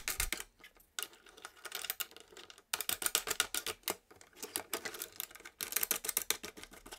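Rapid light clicking and rattling of plastic parts as a clear featherboard guard is handled and star knobs are spun down onto their T-bolts, in bursts with short pauses between them.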